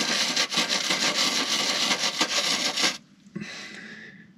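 Wire brush scrubbing rust-pitted car body steel coated in rust-remover gel, in quick repeated strokes, working the gel into the pits to dissolve the rust. The scrubbing stops about three seconds in, leaving a quieter hiss.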